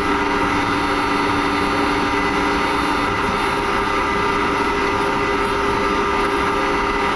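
Steady cockpit hum of an Airbus A300-600 with its jet engines idling, a dense even noise with several steady tones; one low tone drops out about three seconds in.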